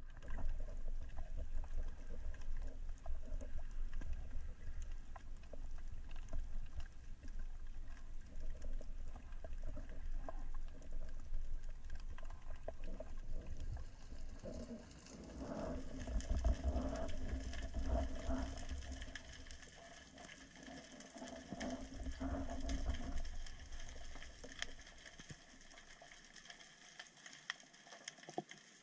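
Underwater sound during a breath-hold spearfishing dive: a low rumble of water moving over the camera, with a faint crackle of clicks throughout. A louder stretch with a low hum comes about halfway through, and the rumble fades near the end.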